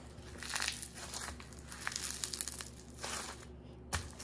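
Fluffy purple slime being stretched apart and kneaded by hand, crackling and tearing in irregular bursts, with a short thump near the end as it is pressed onto the table.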